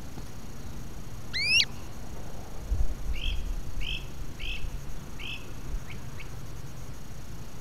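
A songbird calling: a quick rising whistle about a second and a half in, then four short chirps in a row and a couple of faint notes, with a low bump just before the chirps.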